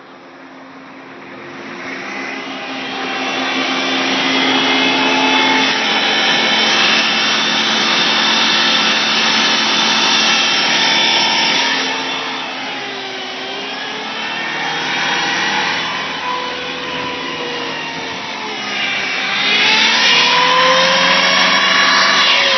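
Loud whine from a 2004 Chrysler Sebring with the four-cylinder engine, revved in gear against the brake. The whine climbs in pitch as the revs rise, drops back around the middle and climbs again near the end. Those listening take it for something on the transmission side.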